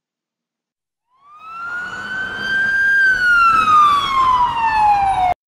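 A siren sound effect: one wail that starts about a second in, rises for about two seconds, then falls steadily and cuts off abruptly just before the end.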